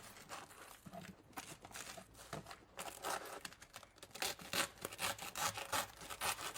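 Rustling and crinkling, as of paper or plastic being handled, with quick irregular strokes that grow louder and busier about four seconds in.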